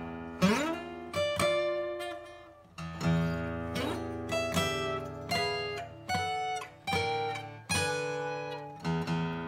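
Martin MMV acoustic guitar played with a pick: picked chords and single notes ringing out and decaying, with notes sliding up in pitch about half a second in and again near the middle.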